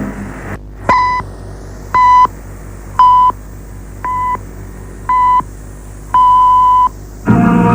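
Six-pip radio time signal received over shortwave: five short 1 kHz beeps a second apart, then a longer sixth pip marking the exact hour. Faint steady hum and hiss of shortwave reception lie underneath, and music comes in near the end.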